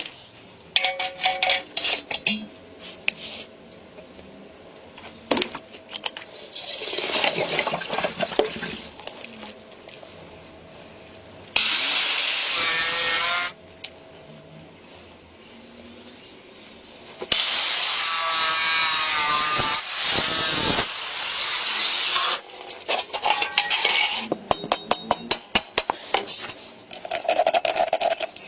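Metalworking sounds: scattered taps and clicks, a stretch of scraping, and two loud runs of a power tool, one about 2 s long and one about 3.5 s long, whose pitch wavers under load. Near the end comes a quick run of taps.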